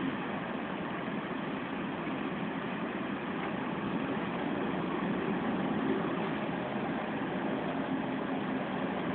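Volvo B10M bus's mid-mounted six-cylinder diesel and drivetrain running at low speed, heard from inside the cabin, with a steady tone over the engine noise that grows slightly louder about halfway through. The uploader puts the bus's unusual howling sound down to a worn-out gearbox.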